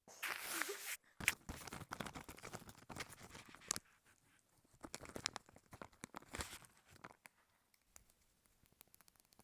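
Close-miked adhesive tape being handled for ASMR. About a second of hiss opens it, then dense crackling clicks run until nearly four seconds in, with another hissy stretch around five to six seconds in and a few light ticks near the end.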